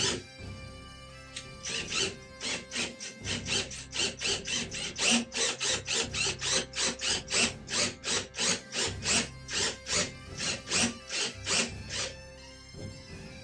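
Cordless drill boring a long bit into a fiberglass shower surround, making a regular clicking about four times a second that starts shortly after the beginning and stops about a second before the end. Bagpipe music plays underneath.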